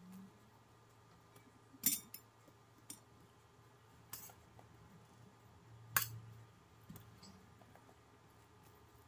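A metal spoon clinking against stainless steel cookware while cooked dolma are lifted out: a few sharp, separate clinks about two seconds apart, the loudest about six seconds in.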